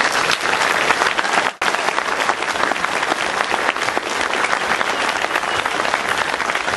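A roomful of people applauding: dense, steady clapping, with a brief break about a second and a half in.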